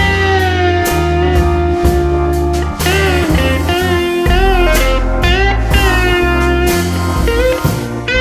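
Background music: a guitar melody with bending, sliding notes over a steady bass and beat.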